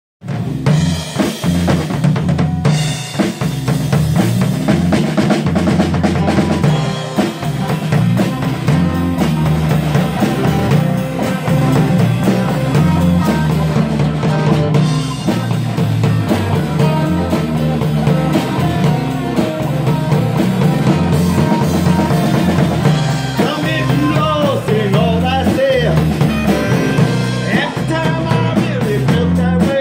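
Live band playing a blues-rock groove: a drum kit keeps a steady beat on snare and bass drum over a repeating low bass line, with acoustic guitar. A wavering melody line comes in near the end.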